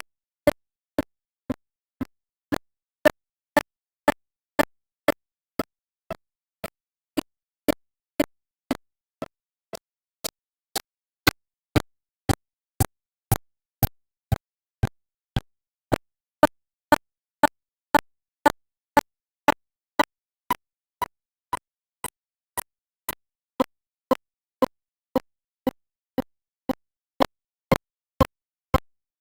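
A steady train of short clicks, about two a second, with silence between them.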